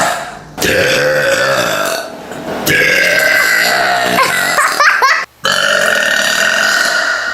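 A woman belching loudly and deeply: three long burps in quick succession, the last trailing off near the end.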